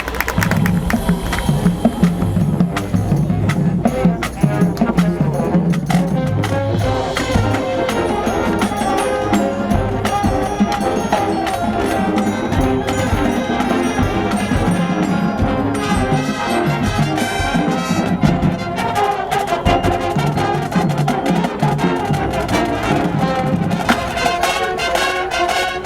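Marching band playing: brass section (trumpets and trombones) over a drumline's steady percussion hits, loud and full.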